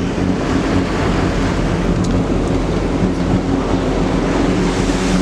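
Motorboat running at speed: a steady engine hum under rushing water and heavy wind noise on the microphone.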